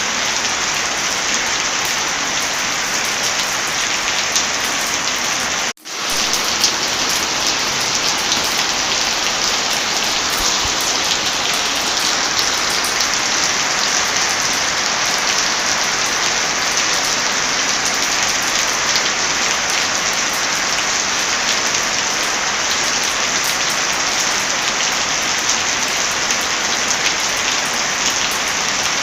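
Steady heavy rain, a dense even hiss, which cuts out for a split second about six seconds in and then resumes.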